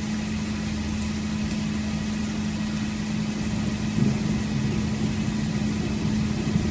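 A steady mechanical hum with one constant low tone held throughout, with a little more strength about four seconds in.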